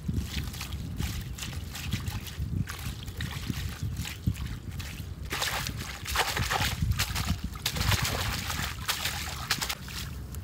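Shallow water sloshing and splashing in irregular bursts over a low rumble, busier in the second half.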